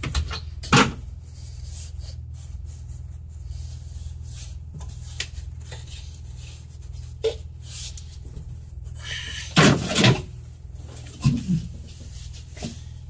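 Scattered knocks and scrapes from handling against the car's rusted underbody sheet metal, over a steady low hum. The loudest knocks come about ten seconds in, with two more shortly after.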